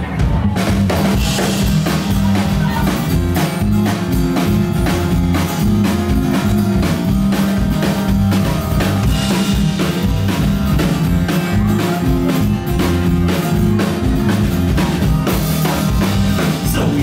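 Live band playing the instrumental opening of a rock song: a steady drum-kit beat with bass guitar and acoustic guitar, and no vocals yet.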